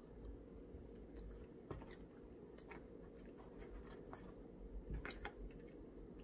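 Faint eating sounds: quiet chewing with a few short sharp clicks, the loudest pair about five seconds in.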